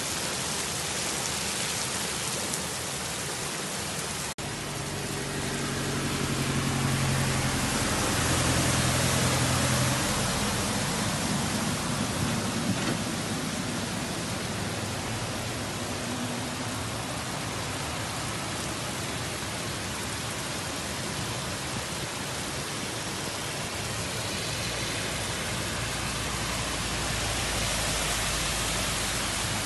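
Heavy rain falling steadily, a dense hiss. From about five seconds in, a vehicle engine's low hum rises under the rain, swells and fades out again after about ten seconds.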